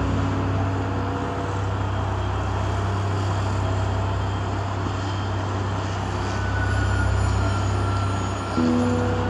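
Muddy landslide floodwater rushing across a road, over a steady low hum of idling vehicle engines. A faint steady high tone joins about six seconds in.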